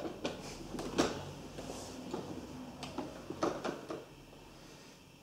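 Irregular plastic knocks and rattles from a child's plastic ride-on toy car being handled and shifted, the loudest knock about a second in.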